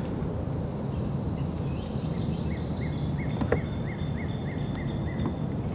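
Swamp birdsong over a steady low background noise: a quick run of high notes, then a short note repeated about three times a second. A single light knock comes about three and a half seconds in.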